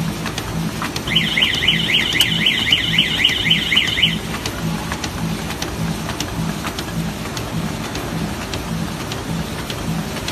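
Aluminum foil roll die-cutting machine running with a steady hiss and a quick regular beat. About a second in, a warbling electronic alarm sounds over it for about three seconds.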